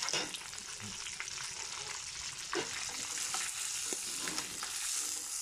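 Fish pieces deep-frying in hot oil in a cast-iron kazan, sizzling steadily, with a few clicks and scrapes of a metal slotted ladle turning and lifting the fish.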